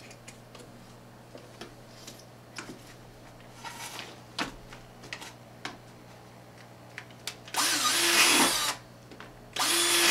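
Cordless drill boring holes through a plastic bucket lid, in two short runs of about a second each near the end, the motor winding up at the start of each. Before that, only scattered light clicks.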